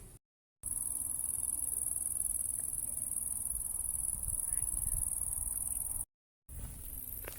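Insects chirring in a dense, steady, high-pitched drone, with a low rumble underneath. The sound drops out to total silence twice, briefly just after the start and again near the end.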